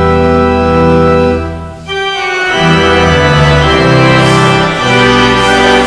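Church organ playing a hymn in sustained chords. The sound drops away briefly just before two seconds in, then the next phrase starts.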